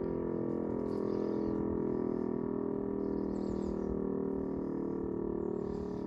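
Siemens-Schuckert E57 electromechanical civil-defence siren sounding a steady, even tone, with birds chirping briefly a few times above it.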